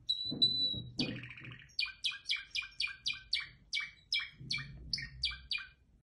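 Caged canary singing: one held high whistle, a quick trill about a second in, then a run of about a dozen repeated down-slurred notes at roughly three a second.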